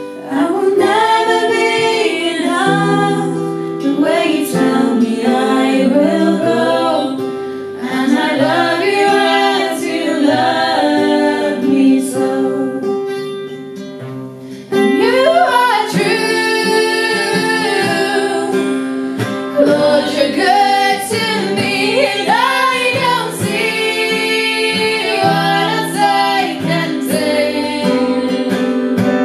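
Three women singing a worship song in harmony to acoustic guitar.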